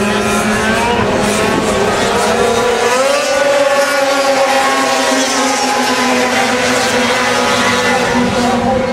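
Racing snowmobile engines, Arctic Cat 500-class two-strokes, running at high revs on an ice oval. Several engine pitches overlap, and they climb about three seconds in and stay high.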